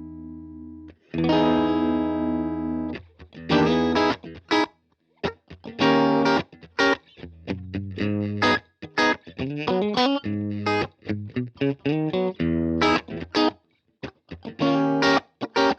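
Electric guitar played through a Strymon Iridium amp modeller. A held chord rings out, a new chord is struck about a second in, then short, choppy chords and riffs follow with brief stops between them.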